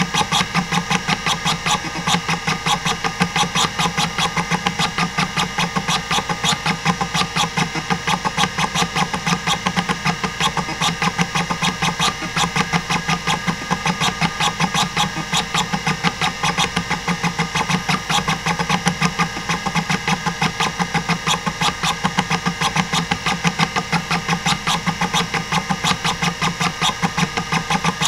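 Hitachi DK505-2 26MB stepper-motor hard drive seeking at random during a SpinRite benchmark: a rapid, even stream of head-seek clicks from the stepper actuator, about six a second, over the steady hum of the spinning platters. The drive is working normally and is in good health.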